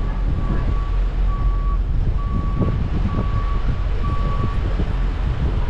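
Backup alarm beeping: a single high tone repeating about once a second, each beep about half a second long, over a steady low engine rumble. The beeping stops near the end.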